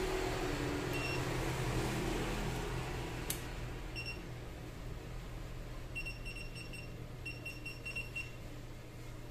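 Hioki digital multimeter giving short high beeps: single beeps about a second in and at four seconds, then a quick run of beeps, about five a second, from around six to eight seconds. A sharp click a little after three seconds, over a steady low mains hum.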